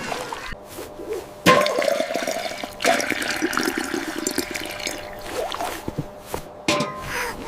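Milk gushing and splashing in surges, a cartoon liquid sound effect: it starts about a second and a half in, swells again, fades, and comes back briefly near the end.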